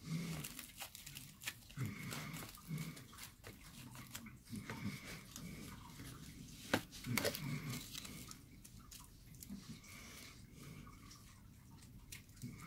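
Aluminium foil crinkling and crunching as hands squeeze and mould it around a glass mason jar, with many sharp clicks and one louder click a little past the middle.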